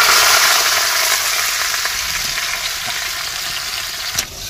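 Raw potato matchsticks sizzling in hot oil in a steel kadhai, loudest just after they go in and slowly quietening as the oil settles.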